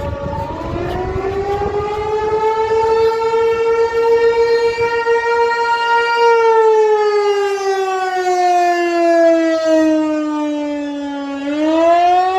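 Outdoor civil defense warning siren sounding during a siren test: it winds up to a steady high pitch, holds for several seconds, slowly winds down from about halfway through, then starts winding back up near the end.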